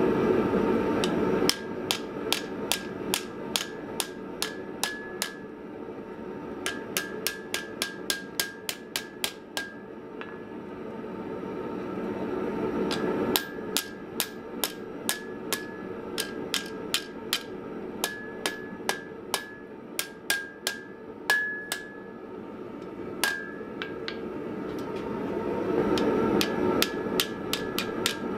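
Hand hammer striking a red-hot 25 by 5 mm flat steel bar on an anvil, in runs of blows about two to three a second, each with a short ring, and a pause of a few seconds about a third of the way through. A steady roar runs underneath, louder at the start and near the end.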